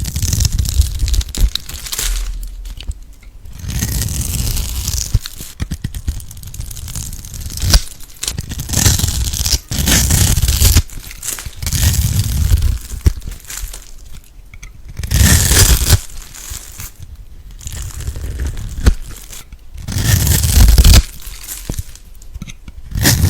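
Close-miked crunching, crackling and tearing of a crunchy slime or soap ASMR material being pressed or cut. It comes in loud bursts of one to two seconds, separated by quieter gaps.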